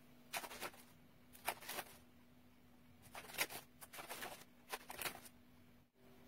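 Crinkling of thin plastic wrappers being peeled off individually wrapped processed cheese slices, in about five short bursts.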